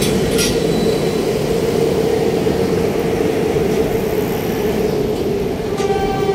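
A train running close by with a loud steady rumble. Its horn starts sounding near the end.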